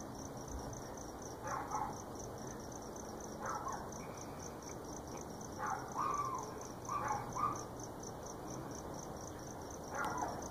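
Dogs barking in short bursts of one or two barks every couple of seconds, faint against a steady chirping of crickets at about four chirps a second.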